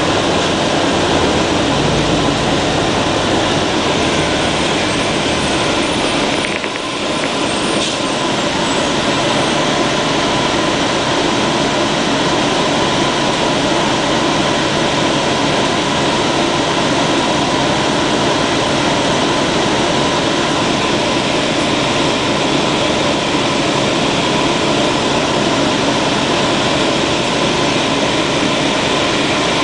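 Orion V transit bus's Detroit Diesel Series 50G natural-gas engine running steadily, with a brief dip in level about seven seconds in.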